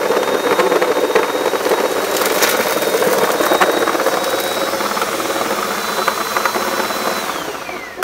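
Bissell PowerForce Compact upright vacuum running on carpet with its newly replaced belt, sucking up crunchy crumbs and debris with scattered crackles over its steady motor noise. Near the end its high whine falls in pitch as the motor winds down.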